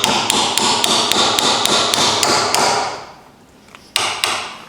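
Hammer striking a hand-forged chisel, driving it into wood to chop out a square mortise. The blows come fast, about five a second, and stop just before the three-second mark; after a pause come a couple more blows about four seconds in.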